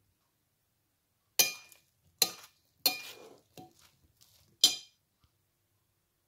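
A spoon stirring chopped fruit salad in a glass mixing bowl, knocking against the glass: five sharp clinks, each with a short glassy ring, spread over about three seconds.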